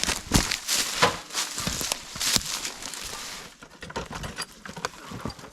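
Wood chips being dumped and spread on a trail, a loose rustling patter of many small pieces. It is heavier for the first three seconds or so, then thins to scattered rustles.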